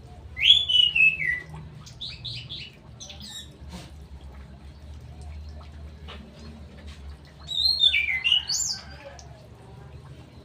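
Straw-headed bulbul (cucak rowo) singing loud, rich warbling phrases: one just after the start with notes sliding downward, then a few short notes, and a second phrase about seven and a half seconds in.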